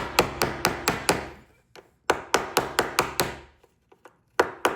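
Small hammer tapping rapidly on a metal door lock housing, peening its edge over to anchor the part down. Sharp taps at about five a second, in three runs with short pauses between them.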